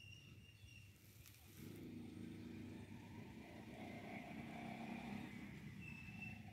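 Faint engine of a road vehicle running, coming in about a second and a half in as a low steady rumble.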